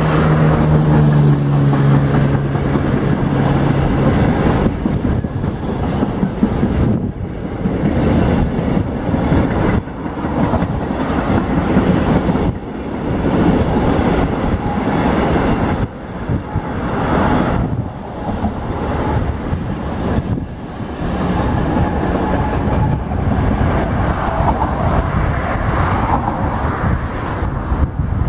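Intermodal freight train of container and swap-body wagons rolling past, with steady wheel-on-rail noise and occasional knocks from the wagons. Road traffic passes alongside, and a passing vehicle's engine tone drops in pitch during the first few seconds.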